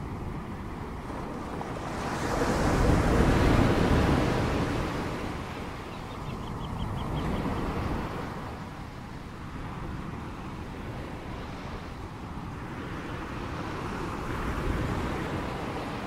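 Ocean waves breaking and washing on a shore as a steady hiss, with a big wave surging and falling back about three seconds in and a smaller one near the end.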